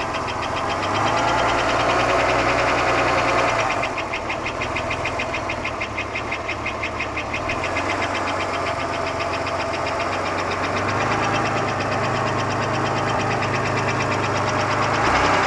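1991 Buick Park Avenue's 3.8 L V6 (3800) running with a loud, rapid, even ticking knock over the engine hum. The noise is there hot or cold and did not change with the accessory belt removed, so it does not come from the belt-driven accessories.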